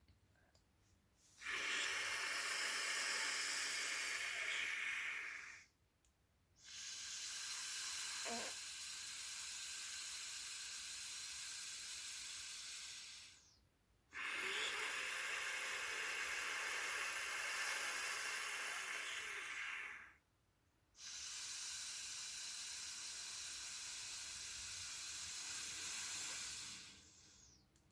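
Two rounds of slow, forced breathing in and out through a handheld resistance breathing trainer that resists both the inhale and the exhale. The result is four long, airy hisses of about four to seven seconds each, with short pauses between them. It is a resistance-breathing exercise for building a stronger cough.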